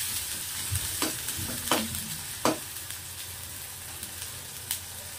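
Onion-tomato masala sizzling in oil in a kadai, with a metal spatula stirring it and knocking against the pan several times, loudest in the first half.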